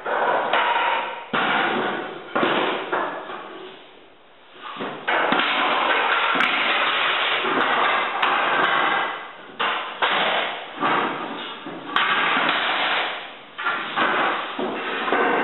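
Hardwood flooring boards being laid out by hand: a run of sharp knocks and clatters as boards are set down and knocked against each other and the subfloor. In the middle there is a few-second stretch of steady noise.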